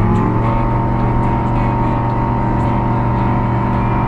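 Highlander light airplane's engine and propeller at high power during a takeoff roll, heard from inside the cockpit. The note rises a little in the first half second as the throttle comes up, then holds steady.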